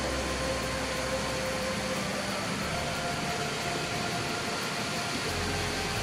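Mountain stream rapids: whitewater rushing over and between boulders in a steady, loud roar.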